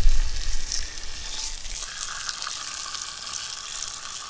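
Fish frying in olive oil in a Dutch oven: a steady sizzle with fine crackles. A low rumble sits under it for the first two seconds.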